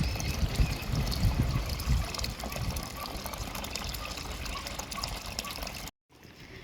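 Steady rush of running water, with irregular low rumbles underneath; it cuts off suddenly shortly before the end.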